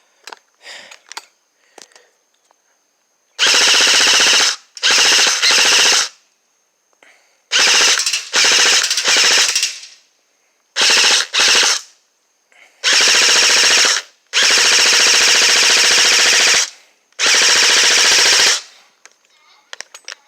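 Electric airsoft M4 (G&G Combat Machine, newly upgraded) firing a series of loud full-auto bursts of half a second to two seconds each, with short pauses between them. A few light handling clicks come before the first burst.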